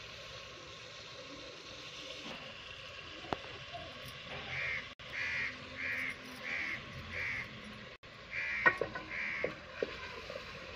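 A crow cawing over and over, about six short caws in an even row from about four seconds in, then two more near the end. Underneath is a steady faint sizzle of chicken frying in oil in the pot, with a sharp knock about nine seconds in.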